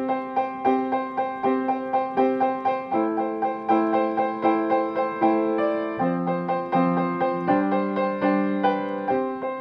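Piano playing a simple improvisation over the chords C major, A minor, F major, G major and back to C, in steady even notes at about two to three a second. The left hand plays open fifths without the middle note of each chord, and the right hand plays a fifth, with the thumb now and then stepping up to D.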